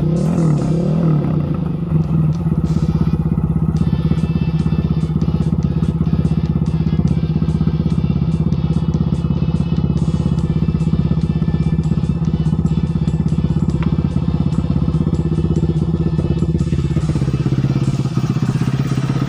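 Bored-up and stroked Honda CRF150L single-cylinder four-stroke engine running loud at a steady, fairly high speed through its exhaust, its pitch held nearly constant.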